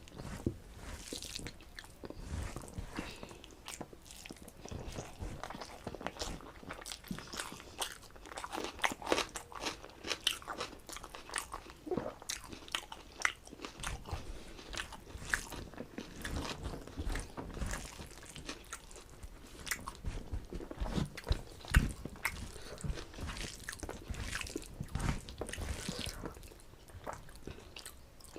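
A person eating close to the microphone: chewing and biting with many irregular crunchy clicks and wet mouth sounds.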